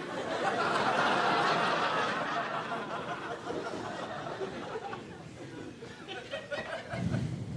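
Audience laughter that swells just after a punchline, is loudest a second or two in, then dies away over a few seconds.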